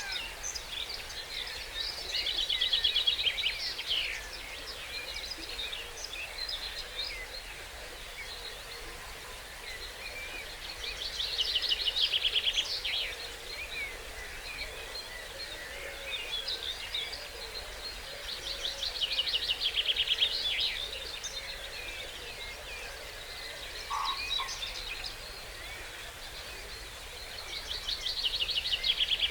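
Dawn chorus of songbirds: one bird repeats a loud, rapid trilled song phrase of about two seconds four times, roughly every eight seconds. Other birds call and sing more quietly in between, over a steady background hiss.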